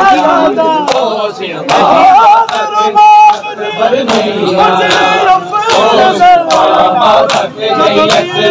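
A large crowd of men chanting a noha together, over a steady rhythm of sharp chest-beating (matam) slaps about every second.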